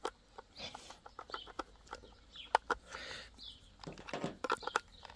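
Irregular small clicks and scrapes of a Phillips screwdriver tightening the battery terminal screws on a plastic-cased PWM solar charge controller, with knocks from handling the case.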